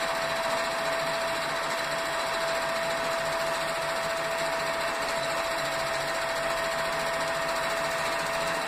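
Electric sewing machine running at a steady speed, stitching a straight seam through outer fabric, lining and batting: an even whirr with a constant motor whine and no pauses.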